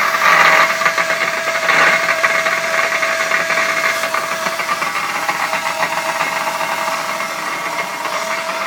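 Old belt-driven steel lathe running, its 1 hp electric motor, leather drive belt and heavy gears turning with a steady hum and a dense rattle. It is louder and rougher for the first couple of seconds, then settles.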